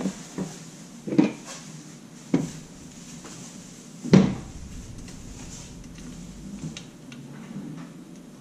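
Parts of an electronic door lock being handled and set down on a work surface: a handful of sharp knocks and clatters over the first four seconds, the loudest about four seconds in, then only faint small clicks and rustling.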